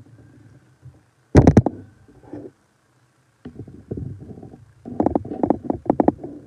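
Chewing and crunching close to the microphone: one loud crunch about a second in, then a run of rapid crunches near the end.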